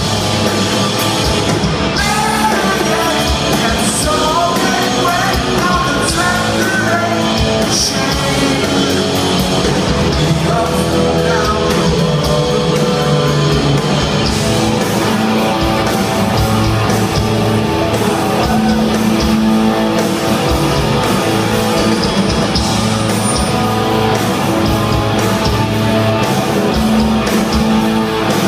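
Rock band playing live in a large hall, with electric guitars, bass and drums. A man sings into the microphone, most strongly in the first half.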